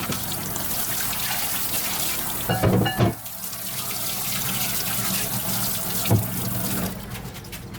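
Running water washing grit out of sandblasted brake drums, with a couple of knocks about three seconds in and one more near six seconds; the water dies down near the end.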